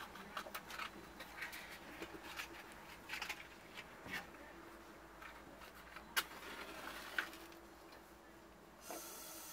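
Small clicks and knocks of things being handled, with two sharper clicks about a second apart, then near the end a steady hiss as a gas-cylinder lantern is lit and burns.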